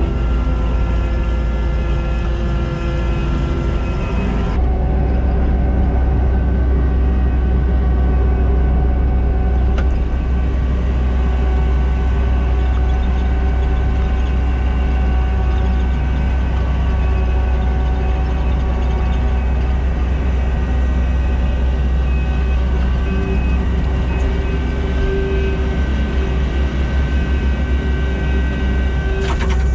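Kubota SVL90-2 track loader's diesel engine running steadily under load while driving a Harley power rake through topsoil, with a deep rumble and several steady higher tones over it. The sound changes abruptly about four and a half seconds in.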